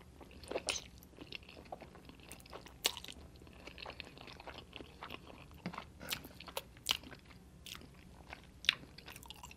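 Close-miked mouth sounds of a person eating fettuccine: noodles drawn into the mouth and chewed, heard as soft, irregular wet clicks and smacks.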